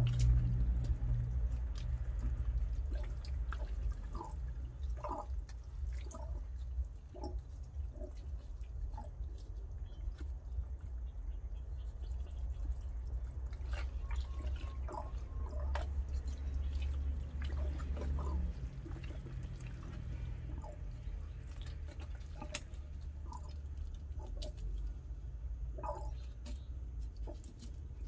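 Wet handling and knife-trimming of a goat's stomach and intestines: scattered soft wet clicks and drips over a low steady hum.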